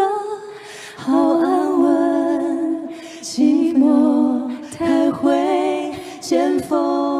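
A man and a woman singing a Mandarin pop duet into handheld microphones, in short sung phrases with brief breaks between them.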